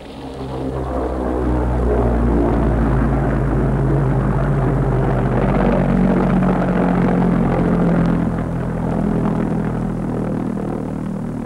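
Aircraft engine drone, low and steady, swelling over the first two seconds and easing off slightly after about eight seconds.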